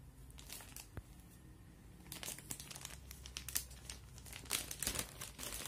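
Clear plastic packaging bag crinkling and rustling as hands work it open, in irregular crackles that get busier from about two seconds in.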